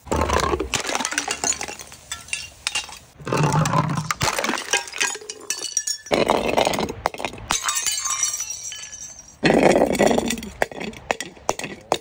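Glass bottles and jars smashing on concrete steps: four loud crashes a few seconds apart, each followed by shards clinking and rattling across the stone.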